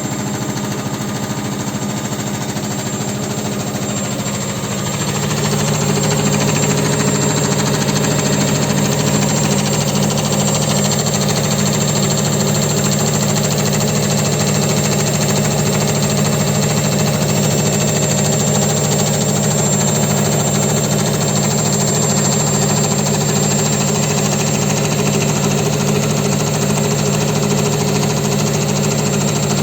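Hansa Aquaspray 800 washing machine on its spin cycle, speeding up about five seconds in and then spinning steadily with a knocking. The knocking comes from a loose concrete counterweight, whose three bolts need tightening.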